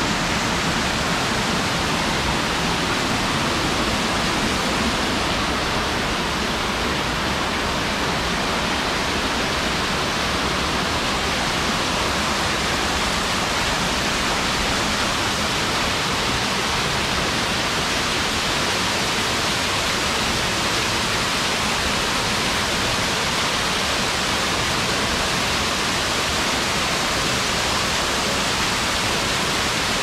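Waterfall pouring down: a steady, loud, unbroken rush of falling water.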